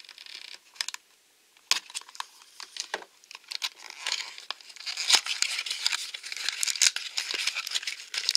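Small cardboard blind box being prised open: a few sharp clicks and tearing as the tucked flap is worked loose, then from about four seconds in the shiny plastic wrapper inside crinkles and rustles, growing louder.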